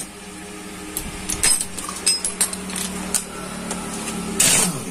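Scattered metal clicks and clinks of a hand wrench working out a 10 mm bolt on a Hero HF Deluxe engine's gearshift mechanism, over a steady low hum. A louder rough scrape of metal comes near the end.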